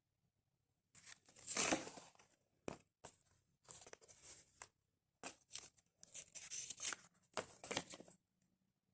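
Paper and card being handled: a series of irregular rustles and crinkles, the loudest a little over a second in.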